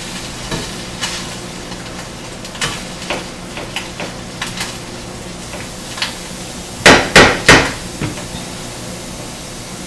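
Diced onions sizzling gently in butter in a frying pan as they are stirred, with light scattered clicks of the spatula against the pan. About seven seconds in, three sharp knocks in quick succession, the spatula rapped against the pan.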